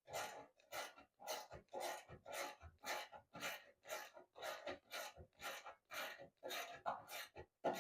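Repeated short rasping strokes at an even pace, about two a second, from hand work on the dryer.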